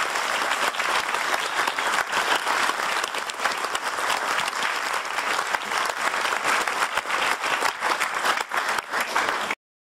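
Audience applauding steadily; the clapping stops abruptly near the end.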